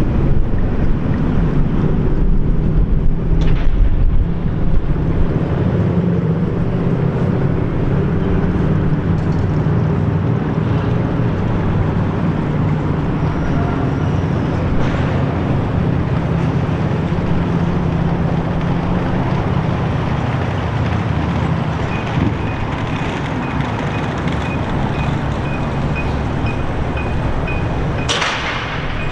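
Steady low rumble of a vehicle's running engine or motor. A faint, evenly pulsing high beep starts about three-quarters of the way through, and a short hiss comes near the end.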